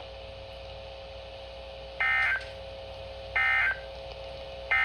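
Three short bursts of Emergency Alert System end-of-message data tones, the harsh two-pitch digital screech, about a second and a quarter apart, marking the end of a broadcast warning. A faint steady hum runs underneath.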